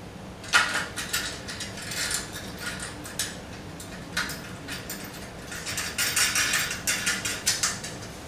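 Metal clinking, rattling and scraping as a hand-forged steel bracket is worked into place against a steel forge-stand frame, in irregular clusters with a sharp clank about half a second in.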